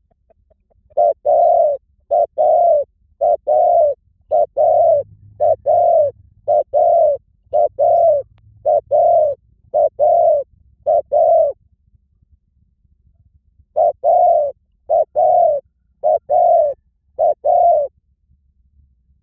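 Spotted dove cooing: a string of two-note coos, each a short note followed by a longer one, repeated about ten times. After a pause of about two seconds it calls four more times.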